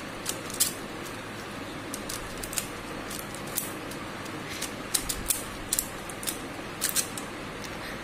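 Stickerless plastic 4x4 Rubik's cube being turned quickly by hand to finish a solve: its layers click and clack in irregular runs of turns, over a steady hiss.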